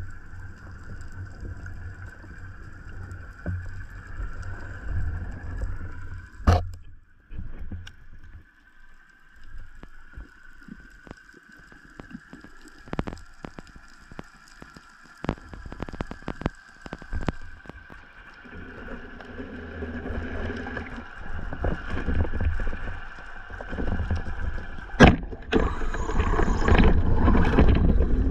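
Underwater sound of a distant motorboat: a steady, slowly wavering engine and propeller whine carried through the water, with sharp clicks now and then. Near the end the water noise grows louder and busier.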